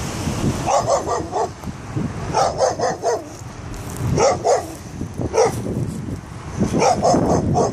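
A dog barking repeatedly in short runs of several quick barks every second or two, over a steady low rumble.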